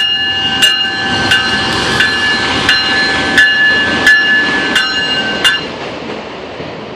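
A passing train's bell rings steadily at about one and a half strikes a second over the rumble of passing trains. The bell stops about five and a half seconds in, and the rail noise then fades.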